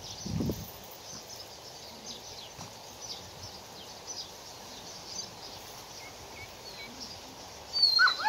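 Outdoor ambience of small birds chirping over a steady background hiss. Near the end comes a short, louder dog yip with sliding pitch.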